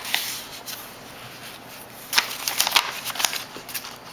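A folded paper instruction sheet being opened out and handled, giving short, crisp paper rustles: a few about half a second in and a busier run between about two and three and a half seconds in.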